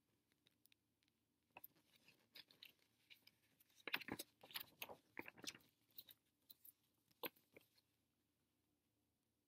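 Printed paper pages rustling and crinkling as they are handled and turned close to the microphone: a scatter of small crackles and taps over several seconds, loudest about four seconds in.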